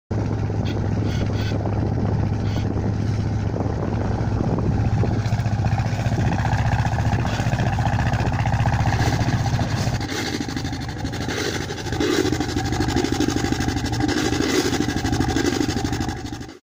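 Volvo Penta MD7A two-cylinder marine diesel running steadily while its exhaust puts out steam instead of cooling water: the engine is overheating. The deep engine note weakens about ten seconds in, and the sound stops suddenly near the end.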